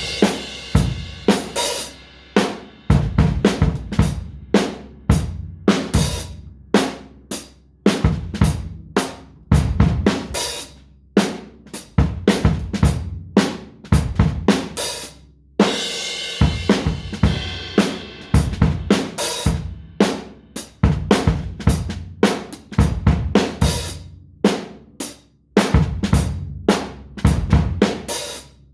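Drum kit played freely in an uneven, improvised groove of snare, bass drum and hi-hat hits. Cymbals ring out near the start and again about halfway through, with a couple of short breaks between phrases.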